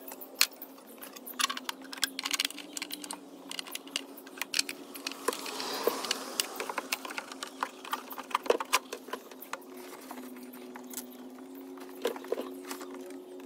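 Scattered clicks, taps and rattles of plastic parts and wiring being handled as a car's tail light bulb holder and lamp assembly are refitted, over a steady low hum.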